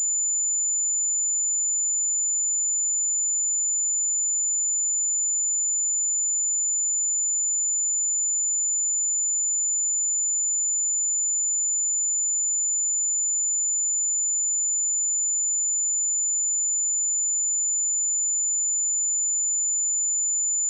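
A pure 7028 Hz sine-wave test tone, a single steady high-pitched tone held at constant level without a break.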